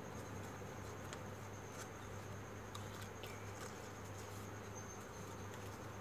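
Faint handling of folded computer-paper units: a few soft clicks and rustles as the pieces are slotted into each other. Under it runs a steady low hum and a thin, high, steady whine.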